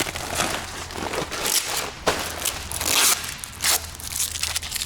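Plastic bags and covers crinkling and rustling as they are handled, in irregular bursts, the loudest about two and three seconds in.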